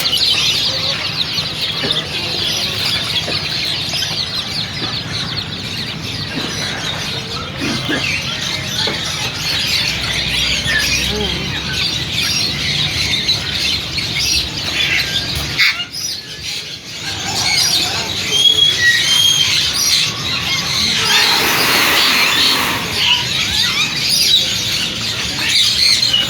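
Many caged birds chirping and twittering together in a dense, continuous chorus, with a brief lull about two-thirds of the way in and a few louder squawks and whistles afterwards.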